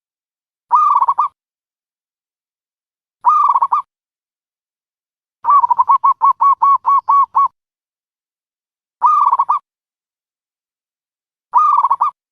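A dove cooing: short, quickly pulsed coos repeated about every two and a half seconds, with one longer run of eight or so rapid coos in the middle.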